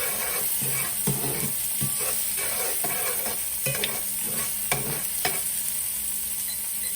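Garlic and tomatoes sizzling in olive oil in a hot pan while a utensil stirs them, knocking and scraping against the pan in irregular clicks.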